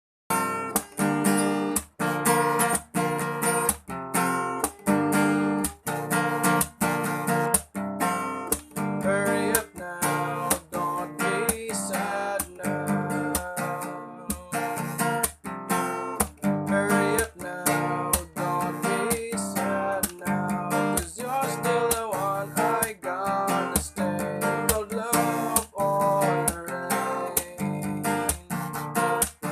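Instrumental song intro: strummed guitar chords in a steady rhythm, with a melody line playing over them from about nine seconds in.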